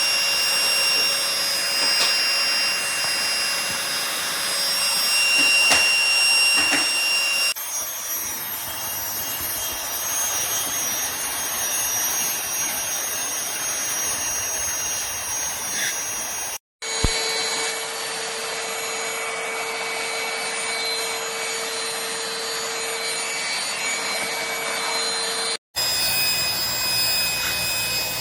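Cordless handheld vacuum cleaner running steadily, a loud rushing of air with a high whine, heard in several clips that change abruptly about 7 and 26 seconds in, with brief dropouts around 17 and 26 seconds.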